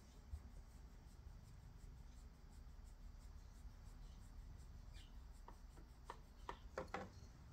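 Near silence with faint rubbing as a hand strokes a cat's fur, and a few short scratchy strokes in the last two or three seconds.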